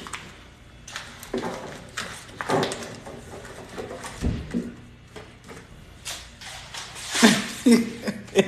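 Irregular rustling and light knocks of packaged groceries being handled and stacked into a small freezer, with a few brief murmured voice sounds, the clearest near the end.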